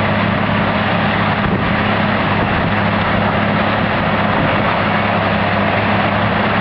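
Farm tractor's diesel engine running steadily at working revs, driving a trailed willow baler as it cuts and bales the stems, a continuous dense mechanical din.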